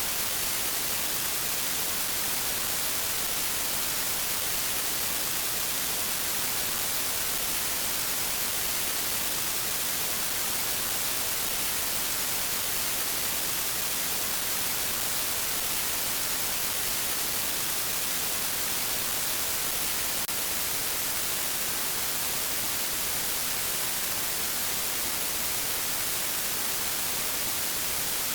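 Steady hiss of static, like white noise, strongest in the high register and unbroken throughout.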